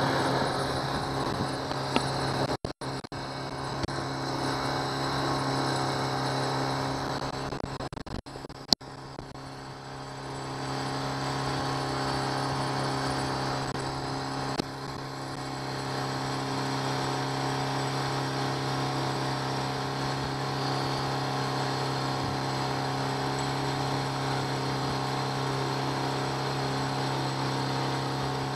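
A 1999 Honda 8 hp four-stroke kicker outboard running at a steady speed, pushing the boat, with water and wind noise. The sound drops out briefly a few seconds in and again near nine seconds in, where there is a sharp click.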